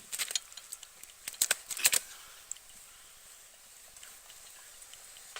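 A lively common carp flapping and slapping several times in the first two seconds, then lying mostly still with only a few stray ticks.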